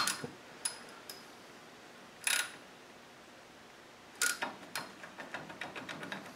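Hand ratchet wrench working a socket on a tightened grub screw in a steel housing: a few metal clinks and a short scrape, then from about four seconds in a run of quick ratchet-pawl ticks as the handle is swung back and forth while the jammed socket is worked off.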